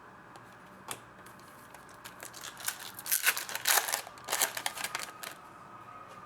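Foil wrapper of a trading card pack being torn open and crinkled: a single light click, then a run of rustling and crackling from about two seconds in until just past five seconds.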